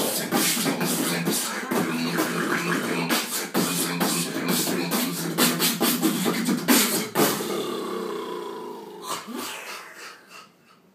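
Freestyle beatboxing by two beatboxers: a fast, dense run of mouth-made kicks, snares and clicks over hummed tones. The beat thins out after about seven seconds and fades away near the end.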